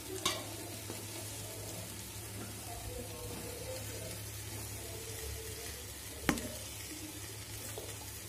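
Rice and dal sizzling softly and steadily in a metal pot as pre-fried vegetable pieces are tipped in from a steel bowl. Two sharp metallic knocks, about a quarter second in and about six seconds in, as the bowl touches the pot rim.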